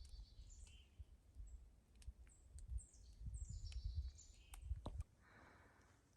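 A songbird singing faint, high, falling notes in short phrases, over a low rumble and a few sharp clicks. The rumble cuts off suddenly about five seconds in.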